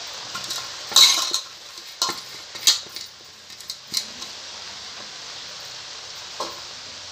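Metal cooking utensils clinking and knocking against a kadhai a handful of times, the loudest about a second in, over a low steady sizzle of the masala frying under the freshly added poha.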